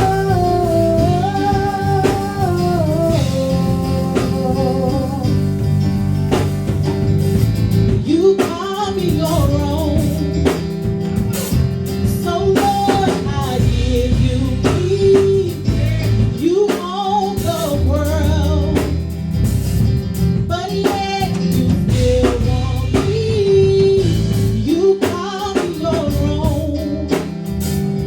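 Live gospel praise band playing an instrumental passage, with guitar and drums. A sliding melody line runs over a steady low bass.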